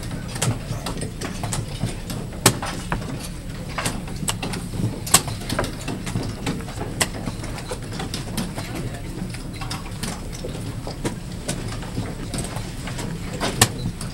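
Sharp, irregular clicks and taps of chess pieces being set down and chess clocks being pressed at blitz games around a tournament hall, over a low murmur of voices.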